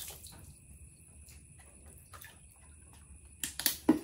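Water splashing, with a quick cluster of loud splashes near the end after a stretch of faint drips and ticks.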